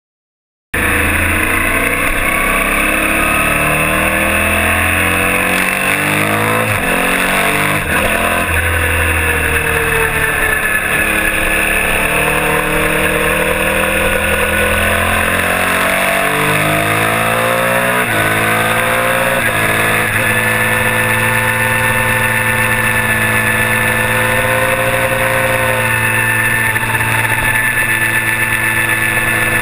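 Onboard sound of a Kawasaki mini twin race bike's parallel-twin engine at racing speed, cutting in abruptly just under a second in. The engine note repeatedly climbs and drops as the bike accelerates, changes gear and slows for corners.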